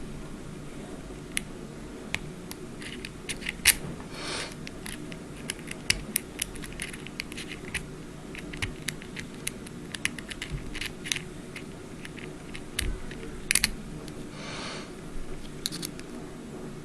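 Lock pick and tension wrench working the pins of a five-pin Schlage mortise cylinder: irregular small clicks and ticks of the pick on the pins, with two short scrapes, about four seconds in and near the end.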